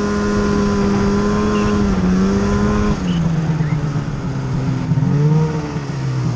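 Arctic Cat M8000 snowmobile with a Boondocker turbo kit, its 800 two-stroke twin running at a steady throttle, then dropping in pitch about halfway through as the throttle is let off, with a short rise in revs near the end as the sled slows to a stop. A steady hiss runs under the engine and cuts off at the very end.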